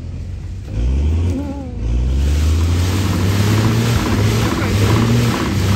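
Orchard tree shaker's engine running hard as it shakes a nut tree, the engine note climbing about a second in and again at two seconds. From then on, a dense rattling hiss of leaves and nuts showering down through the branches runs over the engine.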